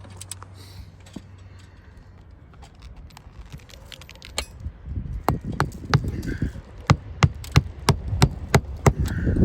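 Sharp cracks and knocks from asphalt roof shingles. They are sparse at first, then from about halfway turn louder and come about three a second, with low thumps. The shingles are old and brittle.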